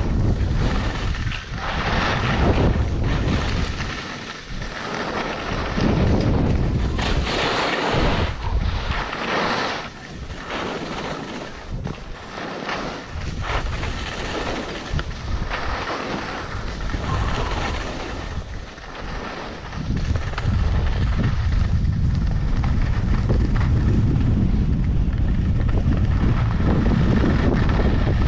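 Wind buffeting the microphone while skiing down a groomed piste, with the hiss of skis on snow swelling and fading every second or two; from about twenty seconds in, a steady heavy wind rumble takes over.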